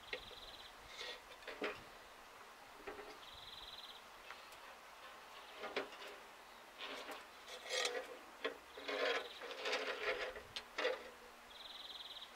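Hand tools working on the metal hub of a rotary drum mower as it is dismantled: scattered clinks, knocks, scrapes and rattles, busiest in the second half. A short high trill repeats three times in the background, every few seconds.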